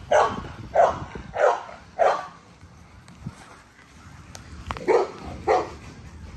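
American bully puppies barking in short barks: four about half a second apart in the first two seconds, then two more about five seconds in.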